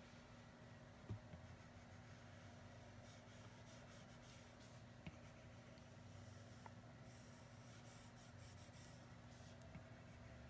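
Faint stylus tip tapping and sliding on an iPad's glass screen: a few light taps and short scratchy strokes.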